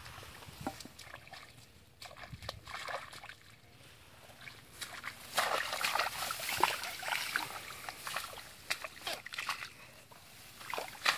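Irregular sloshing and splashing in shallow muddy water, mixed with grass rustling, as a crocodile is grappled by hand. The splashing is busiest about halfway through.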